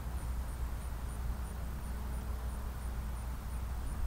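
Low rumble of wind on the microphone, with the faint steady drone of an RC P-40 warbird's propeller, an APC 14x12 driven by a brushless electric motor, flying at half throttle.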